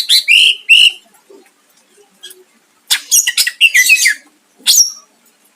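A cucak ijo (greater green leafbird) singing in loud bursts of fast, varied chirps and whistles. One run comes at the start and a longer, denser one follows about three seconds in, ending in a falling whistle. Such song, packed with borrowed phrases of other birds, is what keepers call 'full isian'.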